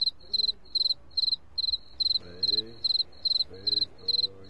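Cricket chirping steadily, a high-pitched trilled chirp about two and a half times a second, with faint voices underneath.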